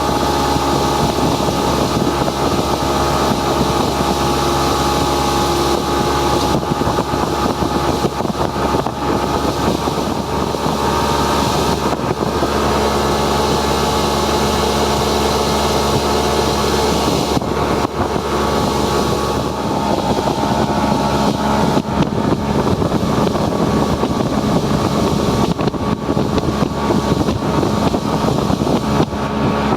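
Motorboat engine running steadily under way, with wind noise on the microphone.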